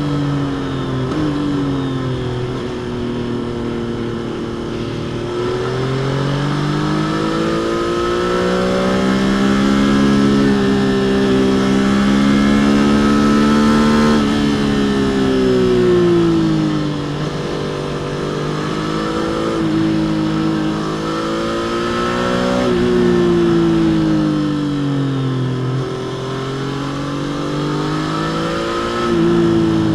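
Stock-exhaust Triumph Trident 660 inline three-cylinder engine under way, heard from the rider's seat. The engine pitch climbs slowly for several seconds under acceleration, then falls away, with brief sudden dips at gear changes.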